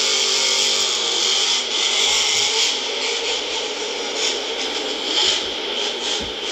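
Monster truck engine running hard in an arena, heard through a phone's microphone as a loud, harsh, steady rasp with the engine note only faintly showing through.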